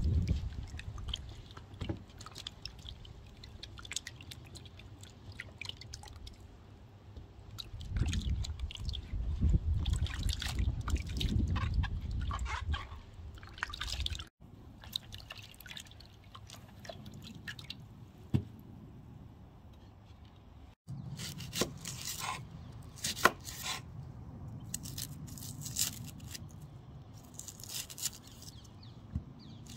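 Water splashing and dripping in a wooden bowl as a bell pepper, a courgette and onions are rubbed clean by hand. In the last third, sharp crackles of dry onion skin being peeled off.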